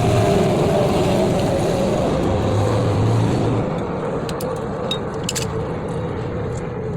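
A motor vehicle's engine running, its sound slowly fading as it moves away, with a few light clicks near the end.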